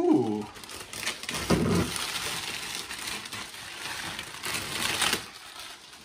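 A clear plastic bag crinkling and rustling as it is pulled up and off a drip coffee maker, with two short vocal sounds, one at the start and one about one and a half seconds in.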